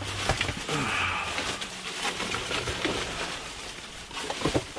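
Rustling of plastic snack packaging and light clicks and knocks as packages are handled and sorted.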